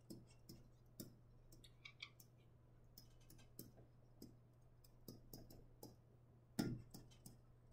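Near silence: faint, irregular clicks and taps, one a little louder near the end, over a steady low hum.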